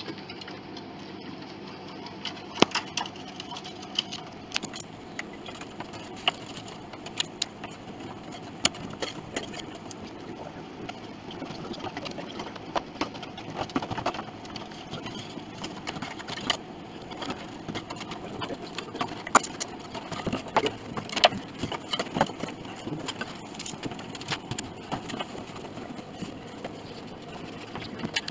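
Irregular light clicks and knocks of hand work on the back of an upright piano's soundboard: a glue applicator and jar being handled and rags wiping off glue, over a steady background noise.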